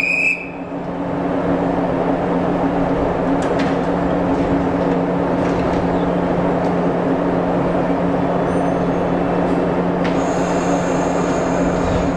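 A Shinano Railway 115-series electric train making a steady low hum over a broad rumbling noise, with no squeal or rise and fall. A faint high whine joins about ten seconds in.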